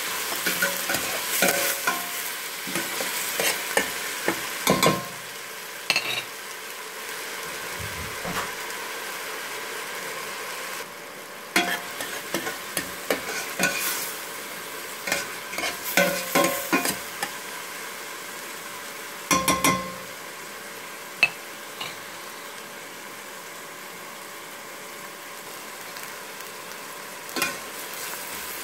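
Diced onions and cumin seeds sizzling in hot oil in a stainless steel pot. A metal spoon scrapes and clinks against the pot in spells as they are stirred, with quieter stretches of steady sizzling between.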